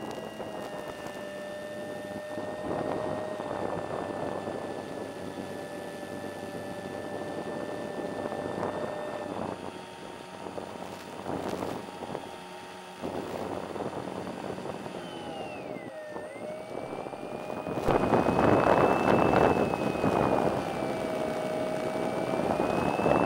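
Slow Stick model plane's electric motor and propeller running in flight: a steady whine that changes pitch with the throttle, dipping and rising again about two-thirds of the way through. A louder rushing noise takes over in the last few seconds.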